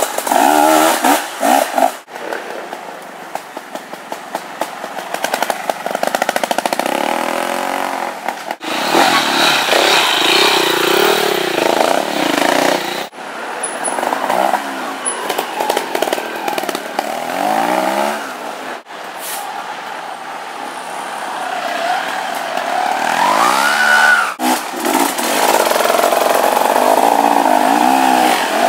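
Off-road motorcycle engines revving up and down as the bikes are ridden slowly over rough, muddy ground. The sound comes in short stretches joined by abrupt cuts.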